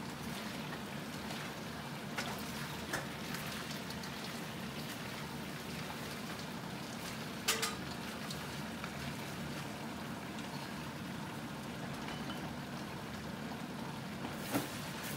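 Flour-coated lobster pieces sizzling as they fry in oil in a wok, a steady crackling hiss. A few sharp clinks of a metal utensil against the pan come through, the loudest about halfway through.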